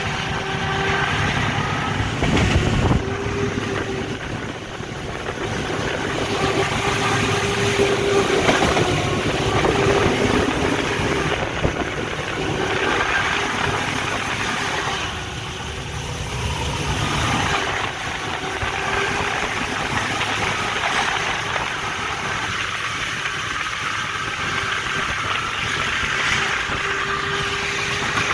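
A GE U18C diesel-electric locomotive running under way, heard from inside its cab. Its V8 diesel engine and running gear make a steady noise, with a humming tone that comes and goes.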